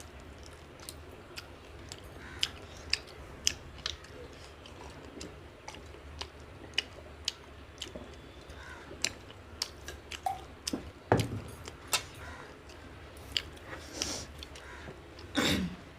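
Close-up eating sounds: chewing on fried fish, with irregular wet mouth clicks and smacks and a couple of louder thuds near the end.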